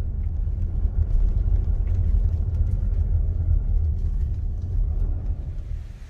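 Car driving along a country road, heard from inside the cabin: a steady low rumble of engine and tyres that fades out near the end.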